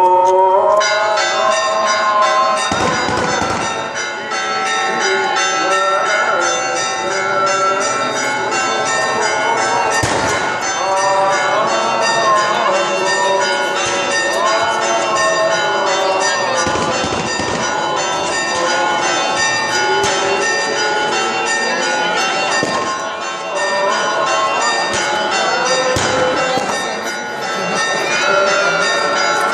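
Orthodox church bells pealing in rapid, overlapping strokes, starting suddenly: the peal announcing the Easter Resurrection. A few dull bangs are mixed in.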